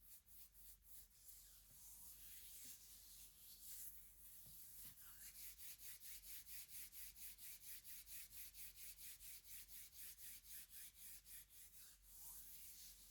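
Faint, light scratching strokes on wood. They are uneven at first, then turn into a fast, even rhythm of about five strokes a second that stops near the end.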